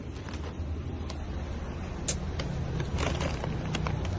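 A motor vehicle engine running with a steady low hum, with a few faint clicks over it.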